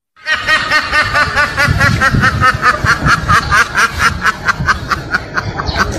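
A duck quacking in a fast, even run of short calls, about five a second, sounding like laughter.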